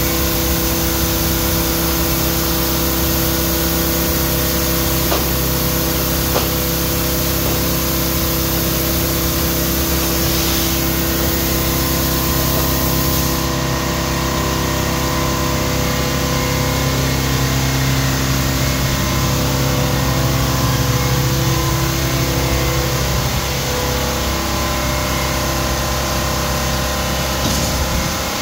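A machine motor running steadily with a constant hum and hiss; the high hiss drops away about halfway through.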